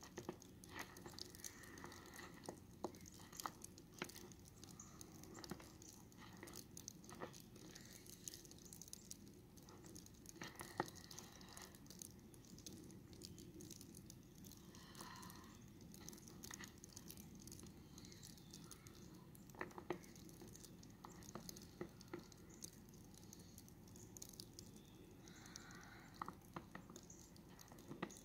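Faint footsteps crunching in snow: irregular soft crunches and small clicks over near-silent outdoor quiet.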